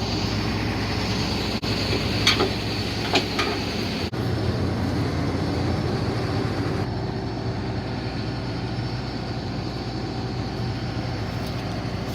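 A large diesel engine, the combine's, running steadily with a deep hum, with a few sharp metallic clanks about two to three seconds in.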